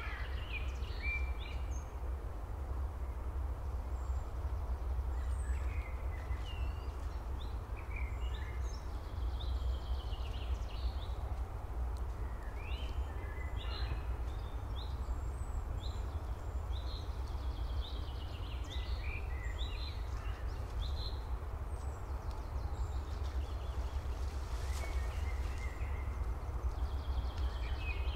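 Birds calling and chirping on and off over a steady low rumble.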